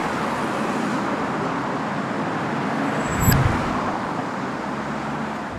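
Steady road traffic noise, an even rush of passing cars, with a low thump about three seconds in.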